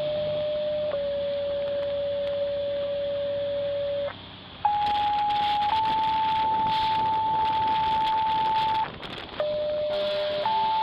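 Fire-dispatch alert tones over a scanner radio. A low steady tone holds for about four seconds and breaks off. A higher tone then steps up slightly and holds for about four seconds. After another short gap the low tone sounds again, followed by the higher one near the end.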